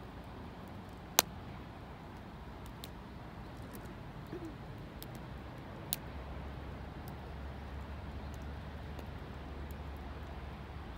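Wood campfire crackling: scattered sharp pops, the loudest about a second in and another near six seconds, over a low steady rumble that grows stronger about halfway through.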